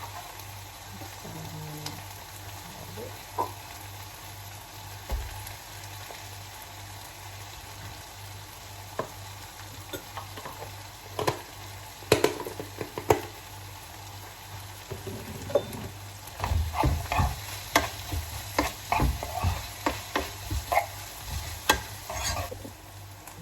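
Onions frying in butter in a pan, sizzling steadily, while a utensil stirs them with scattered scrapes and knocks against the pan. The knocking is busiest over the last several seconds.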